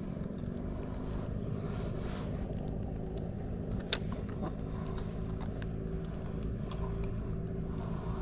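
A steady low engine hum with a few light clicks and taps, one sharper click about four seconds in.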